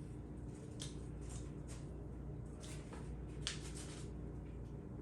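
Chewing birria tacos: a string of short, crackly mouth sounds at irregular intervals, over a steady low hum.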